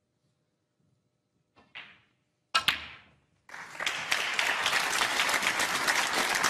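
Snooker cue tip striking the cue ball, then a second later two sharp clacks as the cue ball hits the black and the black is potted. About a second after that, steady audience applause starts and carries on.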